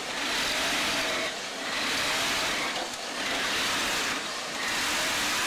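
Industrial mattress tape-edge sewing machine running as it sews along a mattress edge, a loud hissing mechanical noise that comes in about four spells of a second or so, dipping briefly between them.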